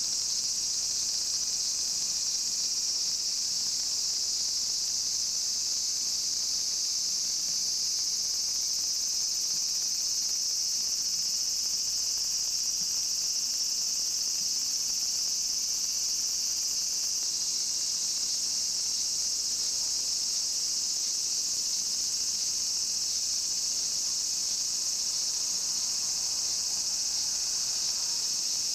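Cicadas singing in a steady, high-pitched, unbroken drone, with no pulsing.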